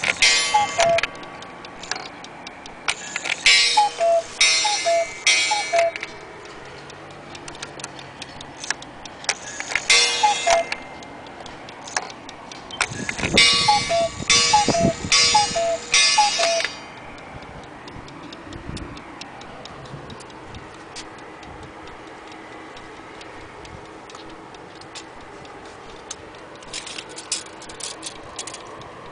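Weight-driven German cuckoo clock ticking steadily, its pendulum beat clear throughout. In the first half it sounds several runs of its two-note cuckoo call: short falling pairs of whistled notes with a bellows hiss, then only the ticking goes on after about 17 seconds.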